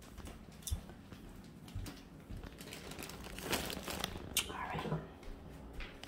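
Faint rustling and crinkling with scattered small clicks, loudest about three and a half to four and a half seconds in: the handling noise of a hand-held phone being moved about.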